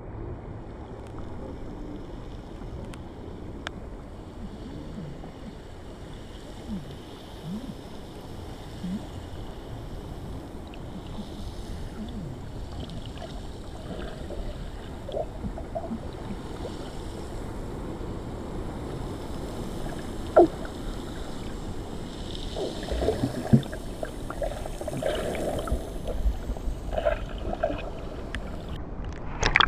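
Underwater sound picked up by a swimmer's camera in the sea: a steady low rush of water with scattered bubble blips. It gets busier in the second half, with bubbling and a few sharp knocks, and ends in a loud burst.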